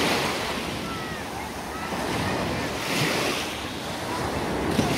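Small waves breaking and washing up a sandy shore, the surf swelling and ebbing every couple of seconds, with some wind on the microphone.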